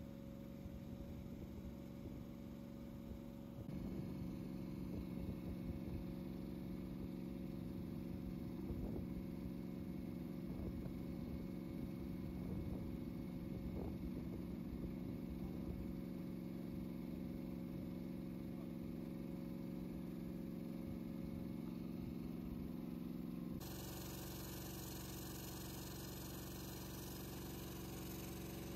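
Small engine running steadily at a constant pitch, driving the portable pump that empties the flooded hull of a raised steel fishing boat. The hum gets louder a few seconds in and changes tone near the end.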